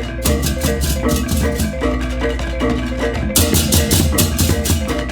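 Balinese baleganjur gamelan playing: many ceng-ceng cymbals crashing in a fast, dense interlocking rhythm over the reyong gong-chime figures, kendang drums and low gongs. The cymbals get louder about three seconds in.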